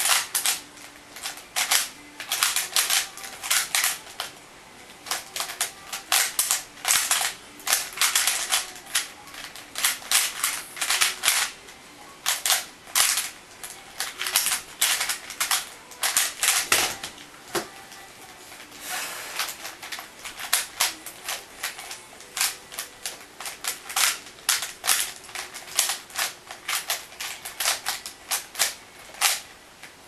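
A 3x3 Rubik's Cube being turned fast in a speedsolve: rapid plastic clicking of the layers snapping round, in quick bursts with short pauses. The clicking stops just before the end as the solve is finished.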